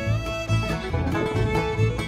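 Background music: a lively tune with plucked strings and fiddle over a steady bass beat.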